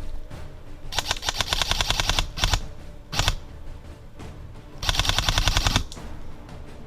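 Airsoft electric gun firing full-auto in bursts: fast, evenly spaced clicking rattles. There are four bursts: a long one about a second in, two short ones, and another long one around five seconds in.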